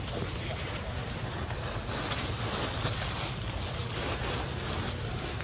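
Steady outdoor noise: wind buffeting the microphone as a low rumble, with a high hiss above it that grows louder about two seconds in.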